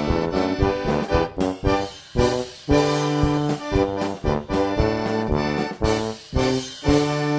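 Background music: an accordion playing a bouncy tune over a steady beat.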